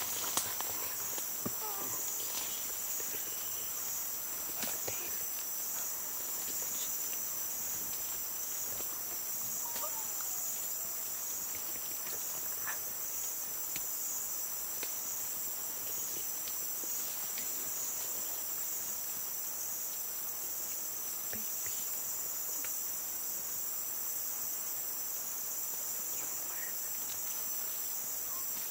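Steady night-time insect chorus, a continuous high-pitched trilling with a slight pulse, with faint rustles and clicks from a cloth bag being handled.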